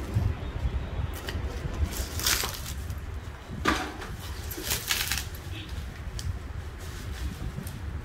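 Woven plastic sack wrapping being torn and pulled off a punching bag by hand: a steady rustle with louder crackling rips about two, three and a half, and five seconds in.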